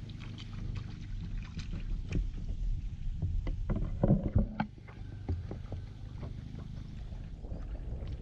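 Stand-up paddleboard paddle dipping and pulling through calm water: small splashes and drips over a steady low rumble, with the loudest splashy knock about four seconds in.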